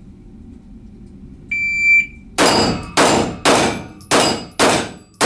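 An electronic shot timer's start beep, about half a second long, followed within half a second by a rapid string of pistol shots, about two a second, each echoing off the walls of an indoor range.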